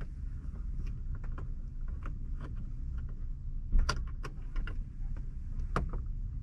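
Small clicks and rattles of an LED bulb and the plastic and metal parts of a truck cab dome light being handled and fitted by hand, with two sharper clicks about four and six seconds in, over a steady low rumble.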